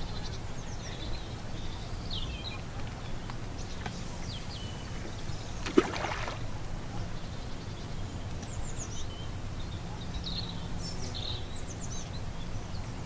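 Outdoor lakeside ambience: small birds chirping on and off over a steady low rumble, with one short sharp knock a little under six seconds in.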